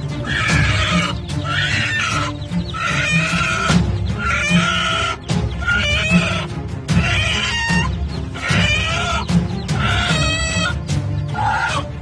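A mother hen squawks harshly, about once a second, as she attacks, over background music with a steady beat.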